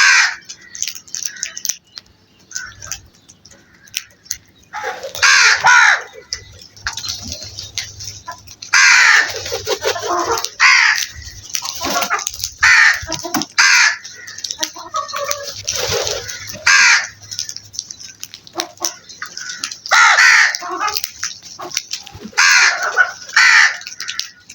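A flock of crows cawing: harsh calls come in clusters, often overlapping, with a lull of a few seconds near the start and another short one later on.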